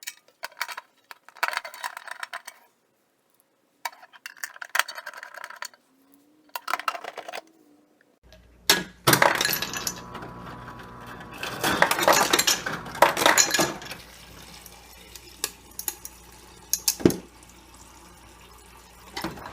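Scattered clicks and knocks, then a steady low hum from the Hotpoint GE refrigerator's ice and water dispenser starting up. Ice cubes clatter and clink into a glass for several seconds, with water running in, showing the dispenser working again on its new electronic control board.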